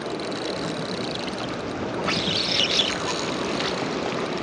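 Steady wind and water noise at the water's edge, with a short scratchy, higher-pitched sound about two seconds in.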